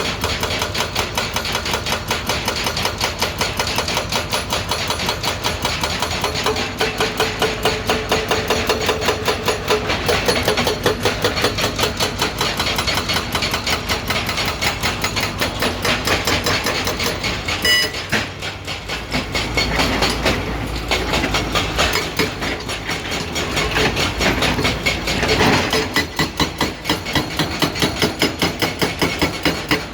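Excavator-mounted hydraulic breaker hammering, a fast run of metallic blows at several a second over the excavator's engine. The blows ease for several seconds past the middle, when a low engine rumble comes up, and are hammering hard again near the end.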